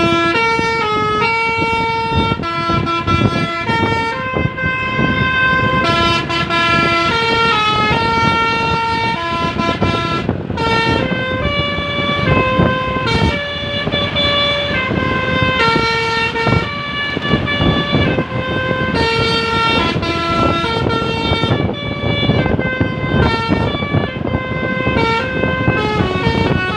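A bus basuri, a multi-note musical air horn played by hand like a keyboard, tooting a tune note by note, with some notes sounding together as chords, over a steady background noise.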